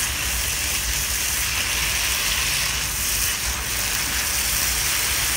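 Sliced onions and chopped tomato frying in mustard oil in a wok, a steady sizzling hiss as a silicone spatula stirs them, with a low rumble underneath.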